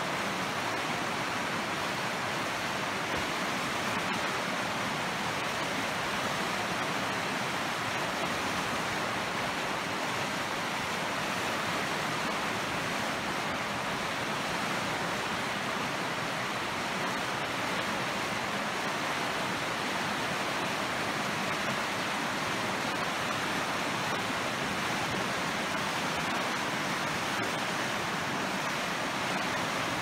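Fast, choppy river water rushing, a steady, even hiss.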